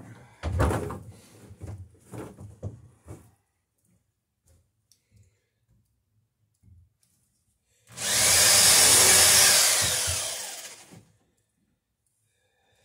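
A hammer driving nails into a wooden boat rail in a quick run of blows over about three seconds. About eight seconds in, a corded electric drill runs for about three seconds, boring a pilot hole into the rail, its whine falling in pitch as it stops.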